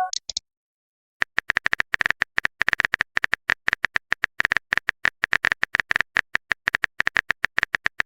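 Smartphone keyboard key-click sound effects: a rapid, uneven run of short taps as a text message is typed, starting about a second in after a brief pause.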